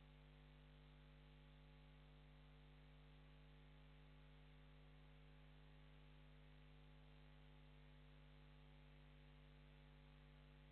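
Near silence: a faint, steady electrical mains hum with hiss.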